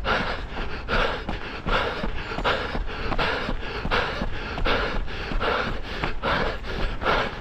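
Runner breathing hard in a steady rhythm, about two breaths a second, while running fast.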